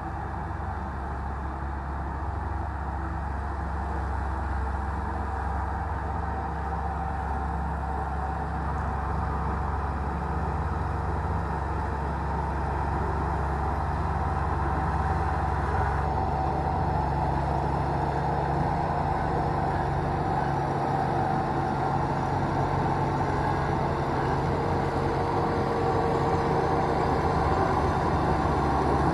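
Bulldozer's diesel engine running steadily under load as it pushes soil, slowly growing louder.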